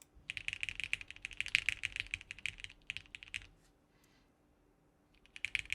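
Fast typing on a Sagrada plateless 60% mechanical keyboard with lubed Cherry MX Black switches and GMK keycaps: a quick run of keystrokes lasting about three seconds, a pause, then a shorter burst near the end.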